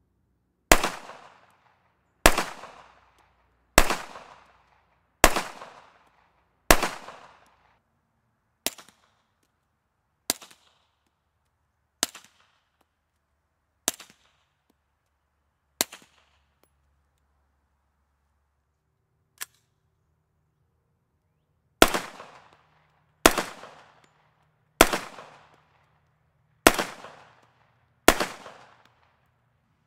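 Three strings of .45 ACP shots, about one and a half seconds apart. First, five loud pistol shots with long echoing tails, fired without a suppressor. Then five shorter, much quieter shots from the pistol fitted with the Bowers ASP45 aluminium suppressor, shot wet with 230-grain full-metal-jacket ammunition, followed by a faint single crack. Last, five loud unsuppressed shots from a QC10 .45 ACP carbine, fired as the baseline.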